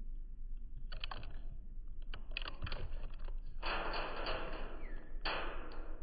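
Blue jay pecking and rummaging in seed on a plastic feeder tray: irregular sharp taps and clicks. A loud hissing rustle sets in past the middle, breaks off briefly and comes back.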